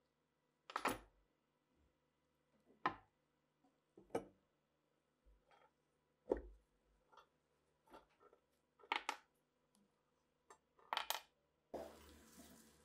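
Rusty metal parts of an antique balance scale being handled and set down on a wooden bench: a series of separate metallic clanks and knocks, about six louder ones a second or two apart with lighter taps between.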